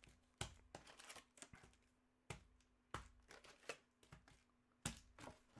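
Faint, scattered clicks and light crinkling of trading cards being handled: about five sharp ticks at uneven intervals, over a faint steady hum.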